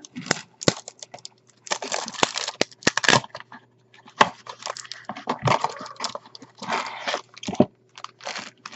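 Packaging of a small blind-box vinyl figure being torn and opened by hand: irregular crinkling, tearing and clicking rustles.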